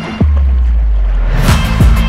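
Background music: a deep bass note comes in suddenly about a quarter second in, and a kick-drum beat starts about a second and a half in.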